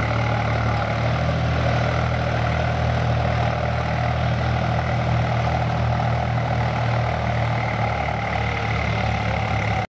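Swaraj 735 tractor's three-cylinder diesel engine running steadily under load while pulling a tine cultivator through soil. It cuts off suddenly near the end.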